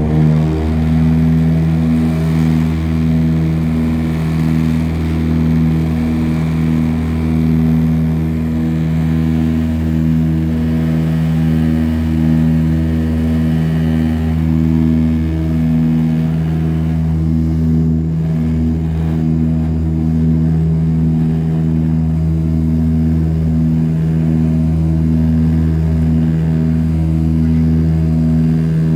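Dash 8-100 twin turboprops heard from inside the cabin during climb-out after takeoff: a loud, steady propeller drone with a slow, regular pulsing beat.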